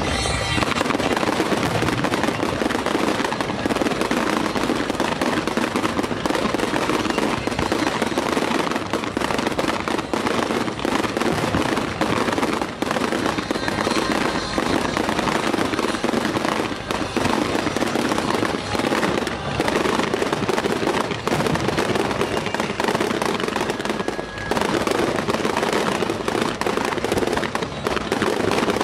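A rapid-fire barrage of fireworks: many shells bursting and crackling in quick succession, the reports overlapping into a continuous rumble.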